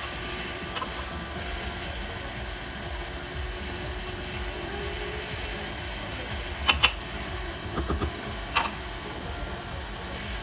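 Stand mixer motor running steadily, with a few sharp clicks about two-thirds of the way through.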